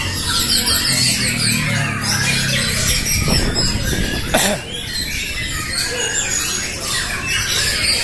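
Many caged white-rumped shamas (murai batu) singing at once in competition, a dense overlapping chorus of loud whistles and chatter. A single sharp knock stands out about four and a half seconds in.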